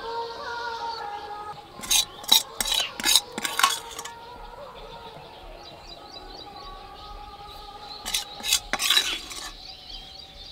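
A metal spoon scraping and clinking against a metal wok as thick, oily mango pickle is scooped out into a glass jar, in two bouts of several quick scrapes each.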